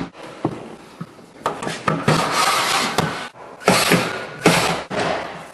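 Cordless drills driving screws into an extruded aluminum shower frame in several short runs, with knocks and rubbing of handling in between.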